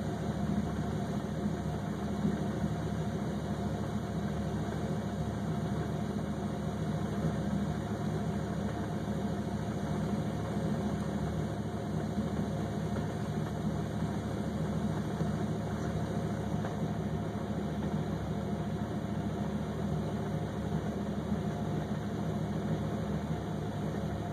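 Car engine idling steadily, a low, even hum with no revving.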